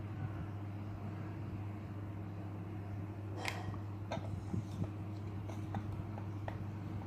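Spoon clicking and tapping against a bowl while stirring slime, in scattered knocks that start about halfway through, over a steady low electrical hum.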